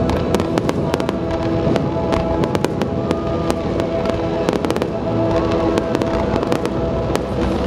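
Fireworks display going off in rapid succession, a dense run of sharp bangs and crackles, with music playing steadily underneath.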